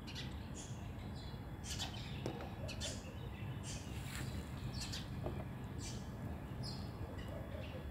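Small plastic toy animal figures clicking and clattering faintly as a child's hand picks through them in a plastic tub, with scattered short ticks over a steady low background noise.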